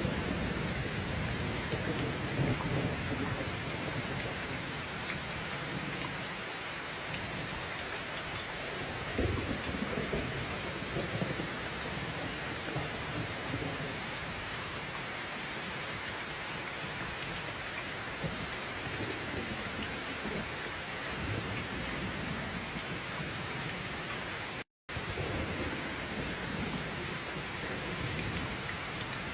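Steady heavy rain, with low rumbles strongest in the first few seconds and around ten seconds in. The sound cuts out completely for a moment about 25 seconds in.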